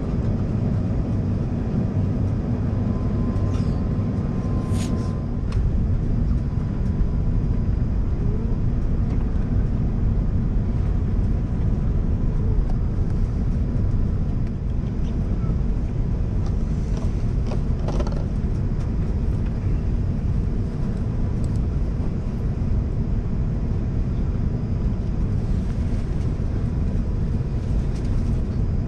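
Steady cabin noise inside an Airbus A380 descending on approach: a low rumble of airflow and its Engine Alliance GP7200 engines heard from a window seat over the wing, with a faint steady tone and a few light clicks.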